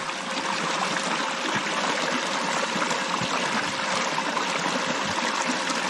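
Small creek waterfall splashing steadily into a waterhole, an even rush of running water.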